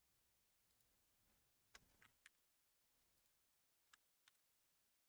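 Near silence broken by a few faint, sharp clicks at a computer, the sound of keys and a mouse being worked: a cluster of three around two seconds in and a pair near the end.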